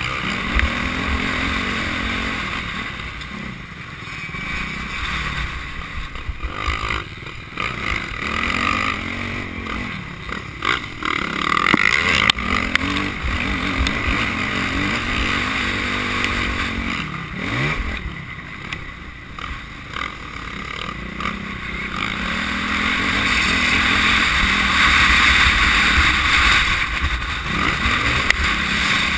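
Motocross bike engine heard from on board the bike while riding a dirt track, its revs rising and falling repeatedly as the rider works the throttle through the track's sections.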